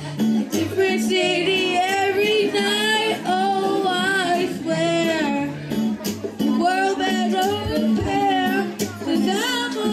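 Young voices singing a pop song into microphones through a PA, over a backing track with a steady bass line.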